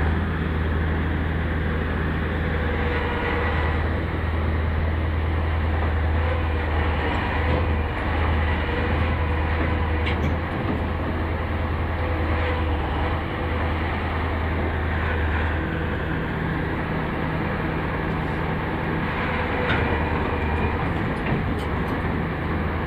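A UVZ EO-5126 crawler excavator's diesel engine runs steadily with a deep drone as the excavator tracks up onto a lowboy trailer. A few faint clicks sound over it.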